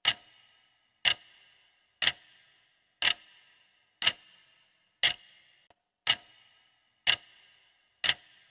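Clock-tick sound effect counting down the seconds of a quiz answer timer: one sharp tick with a short ring after it each second, nine ticks in all.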